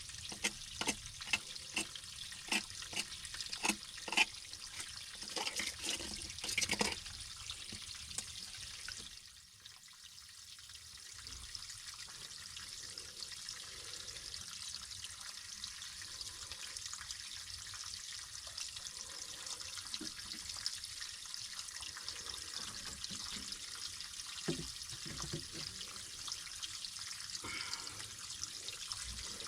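Water from an artesian well flowing and running steadily. For about the first nine seconds it is mixed with repeated sharp clicks and knocks.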